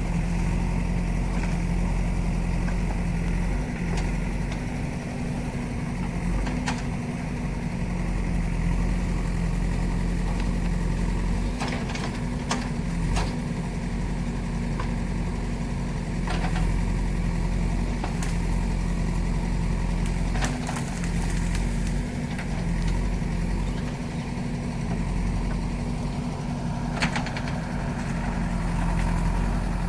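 JCB backhoe loader's diesel engine running steadily, with a few short sharp knocks scattered through, the loudest about three quarters of the way in.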